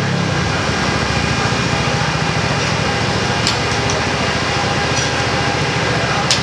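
A small engine running steadily with an even fast pulse, and a few sharp clicks over it.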